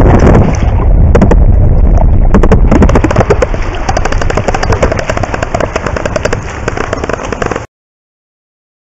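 Front-crawl swimmer's arm strokes and kicks heard underwater: a rushing splash and bubble noise full of sharp crackling pops. It eases off after a few seconds and cuts off suddenly near the end.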